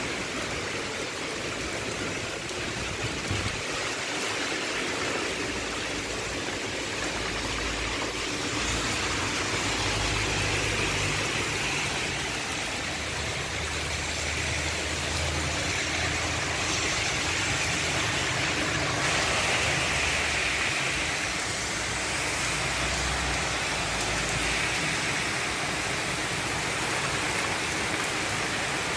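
Heavy rain pouring down on a yard, a concrete walk and the street: a steady hiss of rain on wet ground and pavement. A low rumble swells underneath through the middle.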